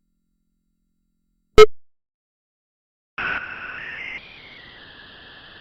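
Unprocessed synthetic sound effects: one sharp click, then a buzzy electronic tone that steps in pitch and drops to a quieter steady hum.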